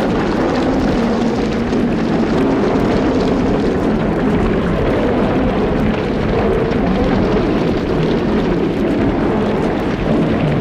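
Sound effect of a group of angry lions growling and roaring all at once: a steady, dense low roar with several overlapping wavering pitches and no pauses.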